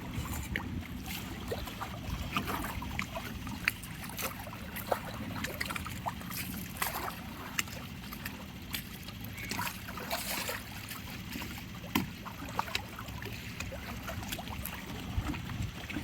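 A boat under way on the water: a steady low rumble, with many small splashes and ticks scattered throughout.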